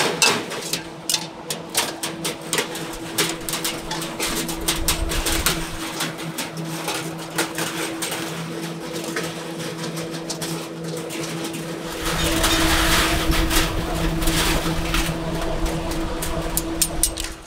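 Candied sweet potato chunks clicking and scraping on a perforated metal tray as they are tipped from a wok and spread out by hand, over a steady hum from the stall's equipment. A low rumble joins about twelve seconds in.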